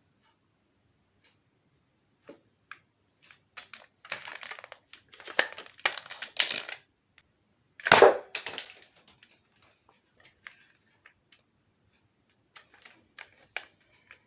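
A plastic toy blaster being handled: scattered clicks and a few seconds of rustling and crackling, then one louder sharp pop or knock about eight seconds in, and a few more clicks near the end.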